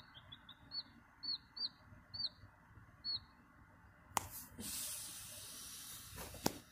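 Newly hatched chicken chick peeping: about seven short, faint peeps in the first three seconds. About four seconds in there is a sharp click, followed by a couple of seconds of rustling noise and another click near the end.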